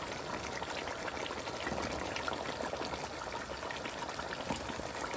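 Chicken and tomato masala sizzling in an aluminium cooking pot: a steady hiss with faint crackles.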